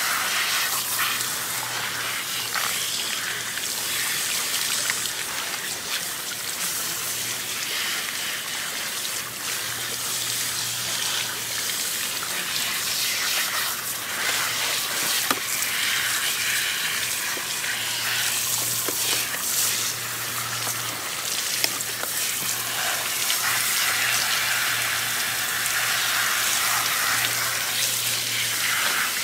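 Water spraying steadily, rinsing the soap out of a dog's coat at the end of a bath.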